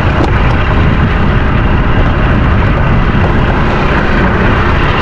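Loud, steady low rumble of strong wind and a small boat out at sea in rough weather.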